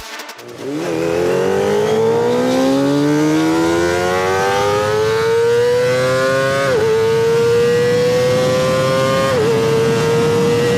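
Kawasaki ZX25R's 249 cc inline-four running through a Sphere stainless-steel full-system exhaust, accelerating hard: its pitch climbs steadily, dips sharply twice as it shifts up, about six and a half and nine seconds in, then holds steady near the end.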